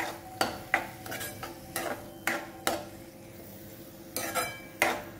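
Steel spatula scraping and clinking against a metal kadhai as soaked moong dal is stirred through an onion-tomato masala: a dozen or so short scrapes at an uneven pace.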